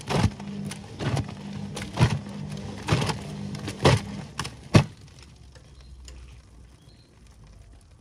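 Whirlpool front-loading washing machine tumbling a wash with its door open. The motor hums while wet, soapy laundry thuds down in the drum about once a second, six times. The drum stops about five seconds in.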